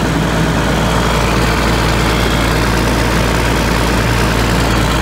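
John Deere 6068 six-cylinder diesel engine running steadily, freshly overhauled and running smoothly, the sign that its camshaft and fuel pump gear timing is set correctly.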